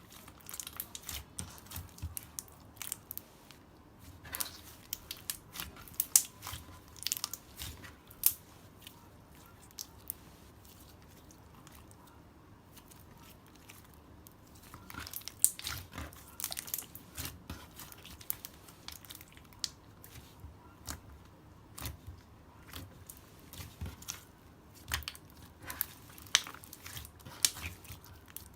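Ice slime being pressed and squished, its crunchy crust crackling in irregular sharp crackles, with a quieter stretch of a few seconds around the middle.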